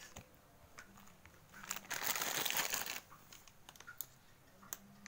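Plastic packet of corn vermicelli crinkling as it is handled, with scattered crackles and a louder, denser burst of crinkling about two seconds in lasting around a second.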